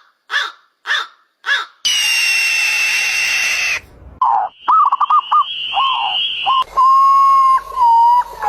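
A run of different animal calls cut one after another: four short calls about half a second apart, a steady whistle-like tone, a quick run of warbling calls, then one long held call.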